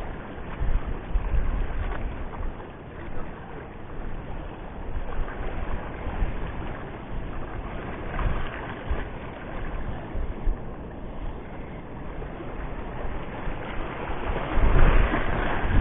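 Wind gusting against the camera microphone in uneven rumbling buffets over the wash of the sea, strongest about a second in and again near the end.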